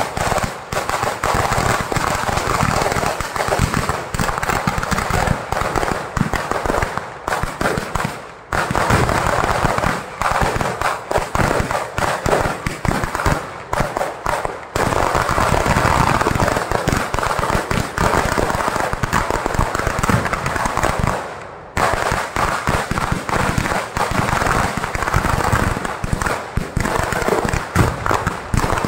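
A dense barrage of firecrackers going off on the ground in rapid, near-continuous bangs and crackling. There are brief lulls about eight and twenty-one seconds in.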